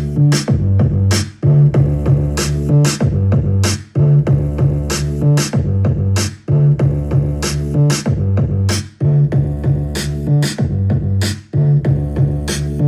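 Boom bap hip-hop beat from an Akai MPC One: hard kick and snare hits over a deep, looping bass line, the pattern repeating about every two and a half seconds.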